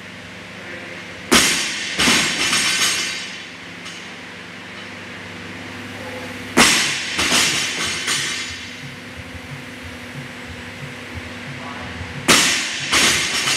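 A 55 kg barbell with rubber bumper plates dropped onto rubber gym flooring three times, about every five and a half seconds. Each drop lands with a bang, bounces once more about half a second later, and the plates rattle as it settles. A steady low hum runs underneath.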